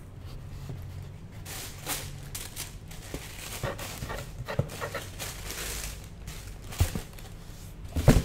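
Tissue paper rustling and crinkling as sneakers are unwrapped and lifted out of a cardboard shoebox, with a couple of knocks from the shoes and box, the loudest near the end.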